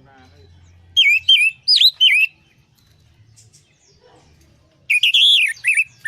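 Orange-headed thrush singing: two bursts of quick, loud whistled phrases with notes sweeping up and down, one about a second in and another near the end.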